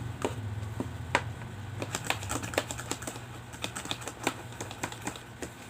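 A fork clicking and scraping irregularly against a bowl while stirring a glue-and-water slime mixture, over a low steady hum.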